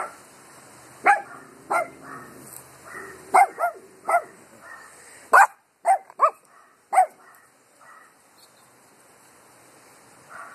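Small dogs barking in short, sharp, high-pitched barks, about ten in the first seven seconds, some in quick pairs. Then the barking drops away to faint sounds.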